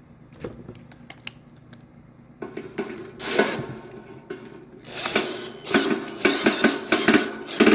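Work on a dryer's heating element: a few light clicks, then from about two and a half seconds in, repeated bursts of mechanical clatter and rattle as the part is fitted back into place.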